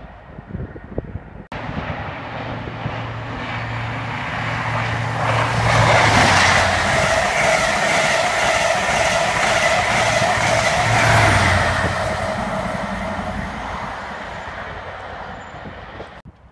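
High Speed Train (InterCity 125) running through on the main line: the diesel drone of its class 43 power cars under a rapid clatter of coach wheels over the rails. It builds to its loudest about six seconds in and fades away near the end.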